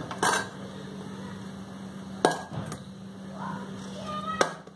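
Peeled potato chunks dropping into a stainless steel bowl as they are cut off by hand with a knife: three sharp knocks about two seconds apart.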